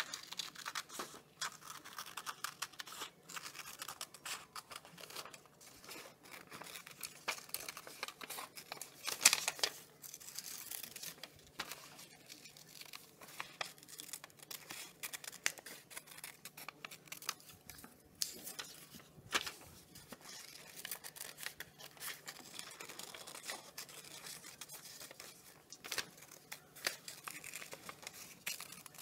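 Scissors snipping through a paper activity sheet: a steady run of short crisp cuts, with the paper rustling as it is turned, the loudest snip about nine seconds in.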